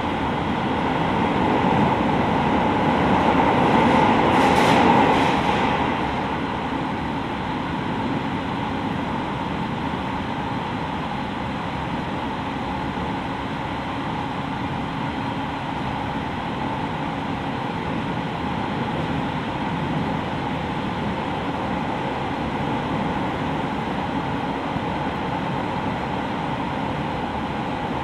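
Cab-end interior noise of a JR East 701-series electric multiple unit (KuMoHa 701-30) on the move: a steady rumble of wheels and running gear with a faint steady whine. The noise swells between about two and six seconds in, then settles back to an even level.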